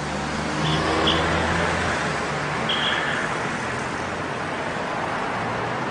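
City street traffic: cars and a tram running past, with three short high-pitched chirps in the first three seconds.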